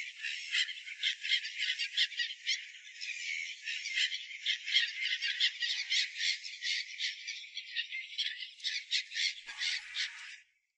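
A large flock of gulls and egrets calling over a tidal flat: a dense, continuous chatter of rapid, overlapping high calls. It cuts off suddenly near the end.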